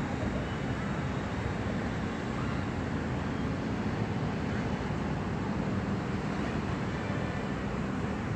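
Steady low rumble of distant city road traffic, even throughout with no distinct events.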